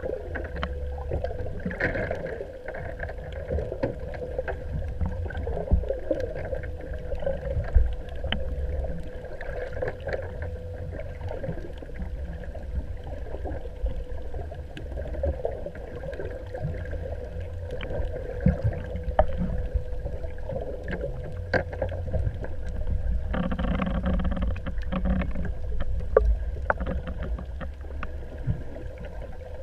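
Small boat on the water: a choppy low rumble of wind on the microphone, a faint steady hum, and scattered light knocks.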